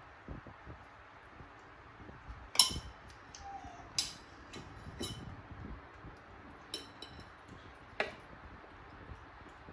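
A metal spoon in a young macaque's hands clinking sharply against a hard surface about five times, the first clink the loudest.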